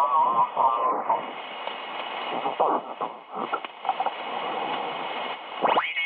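Shortwave reception on a 1960s Drake 2B valve communication receiver: a station's voice comes through hissy and narrow-band, with several steady heterodyne whistles above it. Near the end a whistle sweeps up and back down.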